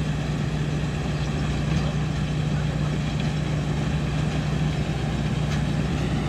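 An engine running steadily at constant speed, an even low drone with no change in pitch.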